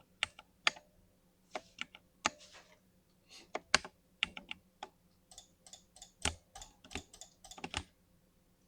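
Typing on a mechanical gaming keyboard with linear switches: irregular keystrokes in quick runs, some keys struck harder than others.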